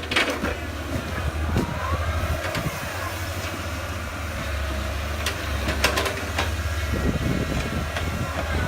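Heavy diesel engine of earthmoving machinery running steadily, with sharp metal clanks and knocks scattered through and a short rising whine about two seconds in.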